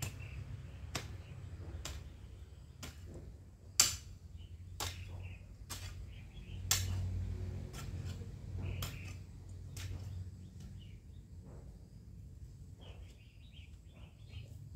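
A hand tool chopping into garden soil, about one stroke a second, two strokes much louder than the rest; the strokes grow weaker near the end, when faint bird chirps are heard.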